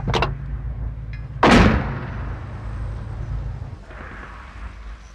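A single loud artillery blast about a second and a half in, sudden and then dying away over a low rumble.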